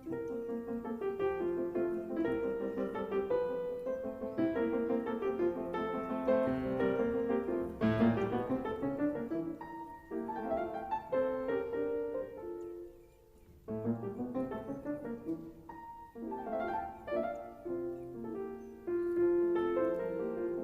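Background piano music, a melody of short notes with a brief pause about two-thirds of the way through.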